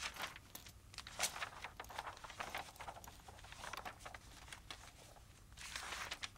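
Pages of an old hardbound book being leafed through by hand: a run of faint, irregular paper rustles and flicks, with a longer swish of a page turning near the end.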